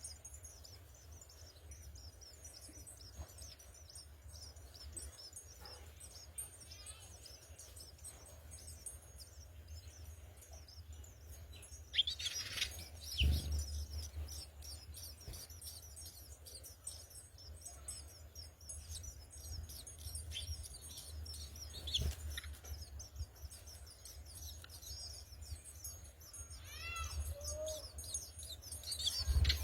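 House sparrows chirping, a steady stream of short high chirps, with a few louder bumps now and then and a low steady hum underneath.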